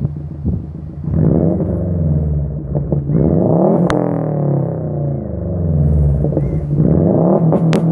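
2008 Subaru WRX's turbocharged flat-four, with a Cobb downpipe and no muffler, revved hard from idle twice on launch control: the revs climb and hold for a couple of seconds, then a sharp crack from the exhaust as they drop. The second rev near the end brings several more cracks.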